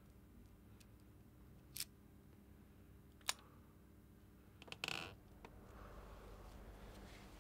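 Quiet room tone broken by two sharp clicks, about two and three seconds in. Near five seconds a few small clicks lead into a short scrape.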